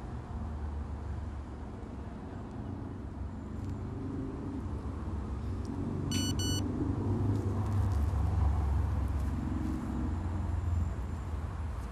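Low rumble of road vehicles, growing louder past the middle and easing again, with one short high beep about six seconds in.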